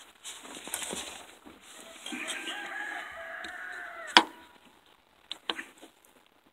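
A rooster crowing once: one call of about two seconds that sags in pitch at its end. Right after it comes a single sharp knock, then a couple of lighter clicks.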